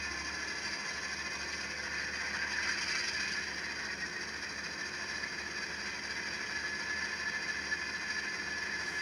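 Recorded diesel locomotive engine sound from a Loksound Select Micro DCC sound decoder, played through the tiny speaker inside an N-scale EMD E8B model. The engine runs through its startup sequence as a steady, thin, tinny engine clatter with almost no bass, swelling slightly two to three seconds in.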